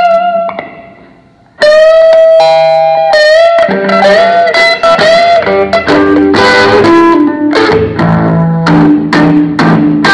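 Solo electric guitar played through an amplifier. A few notes fade out, and after a short pause a long sustained note rings, followed by a run of quickly picked single notes over lower bass notes.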